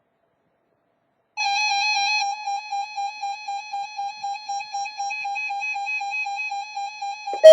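Electronic synthesizer tone that starts about a second and a half in on one steady pitch, holds briefly, then pulses rapidly until it cuts off near the end.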